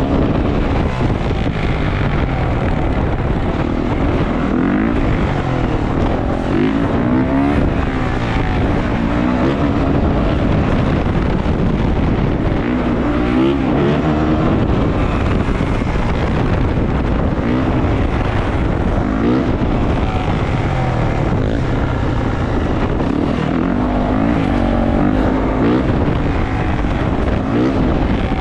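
A 450 four-stroke dirt bike engine revving up and falling back again and again while being ridden, with wind buffeting the microphone.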